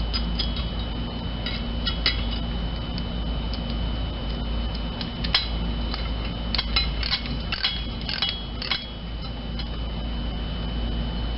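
Small metal clicks and clinks as a lock washer and small nut are fitted by hand onto the ground terminal of a fuel pump and its metal bracket. The clicks come in scattered groups, most of them in a run past the middle, over a steady background hum.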